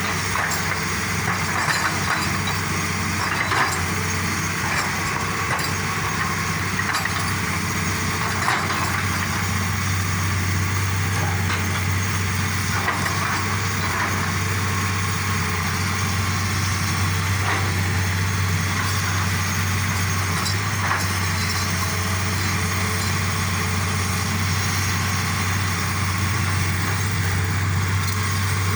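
Excavator's diesel engine running steadily, with a few irregular knocks from the rock being worked.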